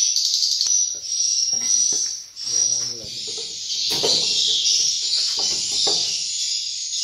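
Swiftlet calls: a continuous high-pitched twittering chatter in short, repeating phrases.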